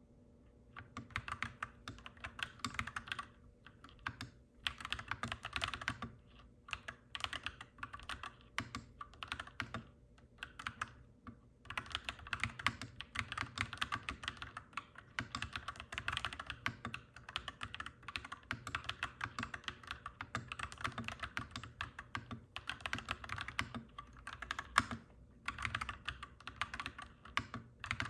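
Clacky mechanical keyboard being typed on in fast runs of keystrokes, broken by short pauses every few seconds, over a faint steady low hum.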